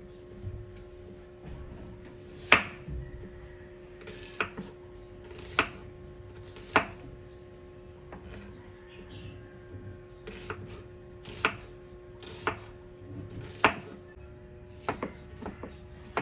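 A series of sharp knocks, mostly about a second apart, over a steady faint hum.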